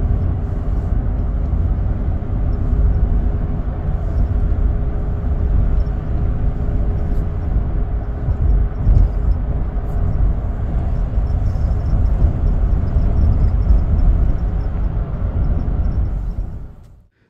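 Road noise inside a moving car's cabin: a steady low rumble with a faint steady hum, fading out near the end.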